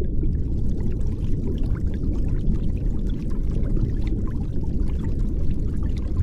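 Air bubbles rising underwater: fine fizzing and crackling bubbles over a deep, steady low rumble.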